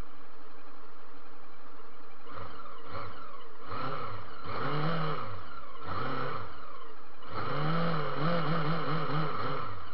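A vehicle engine revved up and falling back in a series of short blips, then held up for about two seconds near the end, over a steady faint whine.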